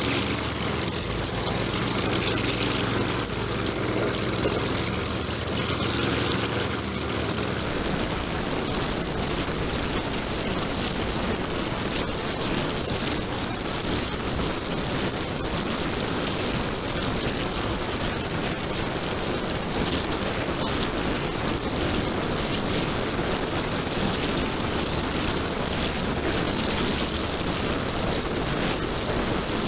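Petrol engine of a Texas Pro Trim 600 wheeled string trimmer running steadily as its nylon cutting line tears through tall, dense weeds and grass.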